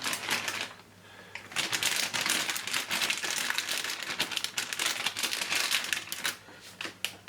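Crinkling and rustling of packaging being handled in quick, uneven bursts, with a short lull about a second in, while bamboo shoot is added to the pot.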